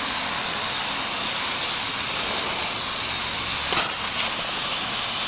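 Steady hissing spray washing down the coil of an old 3-ton Bryant condenser unit, with one short knock about two-thirds of the way in.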